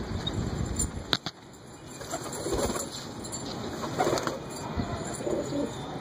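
Domestic pigeons in a loft: a pigeon's wings flap near the start, with a sharp click about a second in, then low repeated cooing that grows busier in the last second or so.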